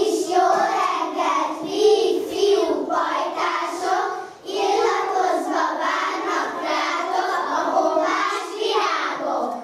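A group of young children singing together without accompaniment, the song breaking off briefly about four and a half seconds in before the next phrase.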